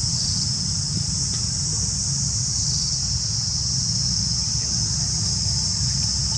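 Steady, unbroken high-pitched chorus of insects, with a low rumble beneath it.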